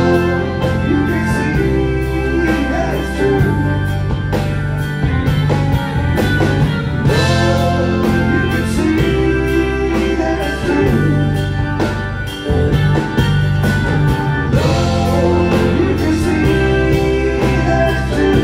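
Live rock band playing with electric guitar, electric bass and keyboards over a steady beat.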